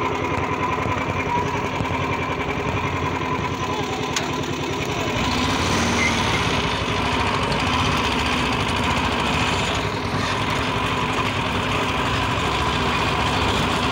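Small engine running with a rapid, even chugging, a little louder from about five seconds in.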